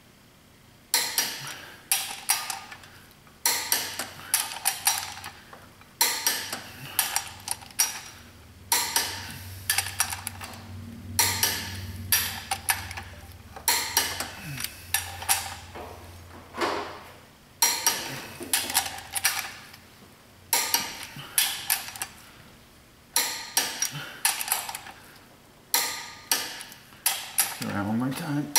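Torque wrench ratcheting and clicking on flywheel bolts being torqued to 94 foot-pounds: a short cluster of sharp metallic clicks every one to three seconds as each bolt is pulled up in turn.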